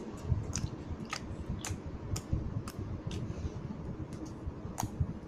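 Slime being pressed and squished by hand, giving sharp clicky pops roughly twice a second over a low squishing, handling noise.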